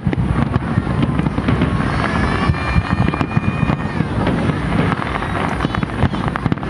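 Aerial fireworks going off in quick succession, a dense run of crackles and bangs. A high held tone rises over the crackle for about two seconds midway.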